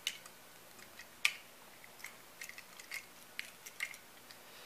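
Faint clicks and taps of two die-cast toy cars being handled and turned in the fingers, with a sharper click about a second in and a few more small ticks in the second half.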